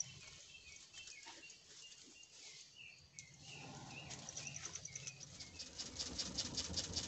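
Dry palm bunch stems crackling and rustling as they are pushed into a wood fire; the crackle grows denser and louder about two-thirds of the way through. Crickets chirp faintly behind.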